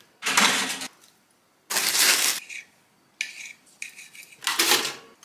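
Five short clatters and scrapes of breakfast being made, with quiet gaps between them: toast lifted from a toaster and a knife cutting cherry tomatoes on a marble board.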